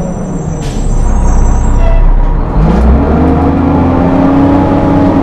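1996 Orion V transit bus engine running, with a short air hiss about a second in. About two and a half seconds in the engine speeds up and then holds steady at the higher speed.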